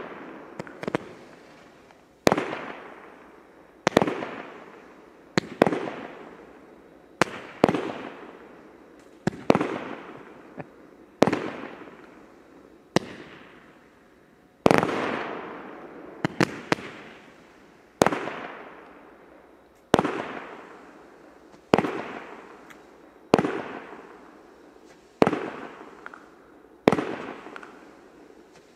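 Consumer fireworks going off in a steady series: a sharp bang about every one and a half to two seconds, each followed by a long fading tail as the burst dies away.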